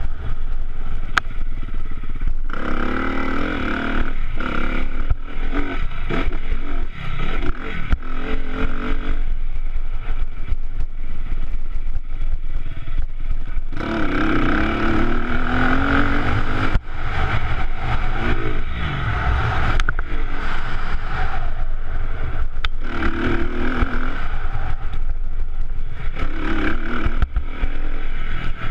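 Honda CRF250R dirt bike's four-stroke single-cylinder engine being ridden hard, revving up and down repeatedly as the throttle is opened and closed, with a steady low wind rumble on the microphone and clatter from the bike over the rough ground.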